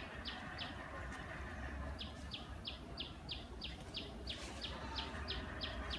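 A bird calling a fast, even series of short high chirps, about three a second, pausing briefly near the start, over a steady low background hum.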